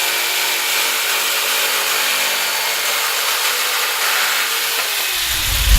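ROK 350W electric jigsaw running with a wood blade, its motor and reciprocating blade making a steady sawing noise.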